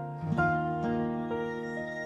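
Soft, slow instrumental music: plucked-string notes over sustained chords, with a couple of new notes coming in during the first second.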